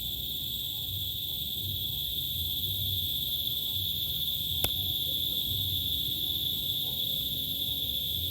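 Steady, unbroken chorus of crickets, a continuous high trill, with a single sharp click about halfway through.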